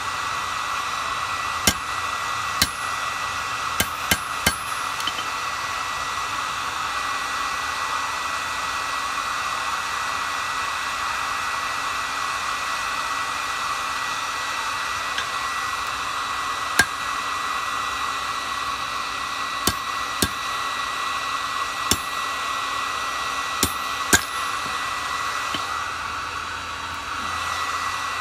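A forge running with a steady rushing of air, and metal struck with a hammer about a dozen times, in scattered single blows and small groups, each with a short ring. The rushing dips briefly near the end, then resumes.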